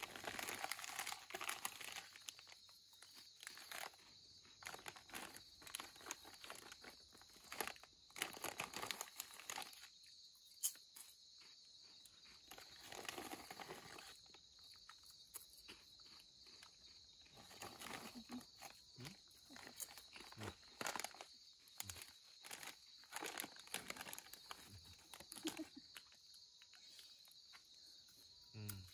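Irregular crinkling and rustling handling noises, with scattered small clicks, over a steady high buzz of night insects.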